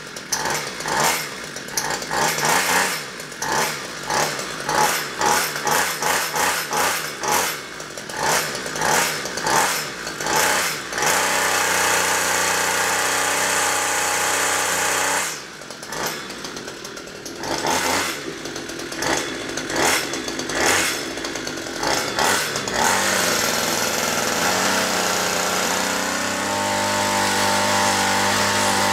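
Gas string trimmer's small engine running rough. It surges and stumbles in quick uneven pulses, holds a steady note for a few seconds about 11 seconds in, drops off briefly and surges again, then settles into a steady idle for the last several seconds. It has just been got started with a spritz of WD-40 in the carburetor.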